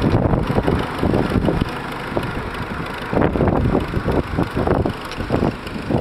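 Wheeled tractor's engine running as it hauls a boat up the beach on a cable, with wind buffeting the microphone in irregular gusts.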